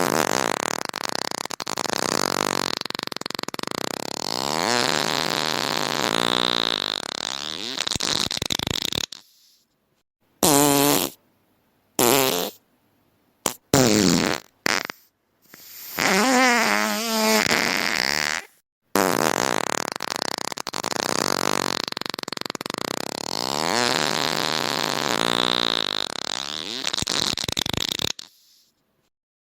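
Fart sound effects in a series: one long fart lasting about nine seconds and wavering in pitch, then four short separate blasts, a fart of a couple of seconds, and another long one of about nine seconds.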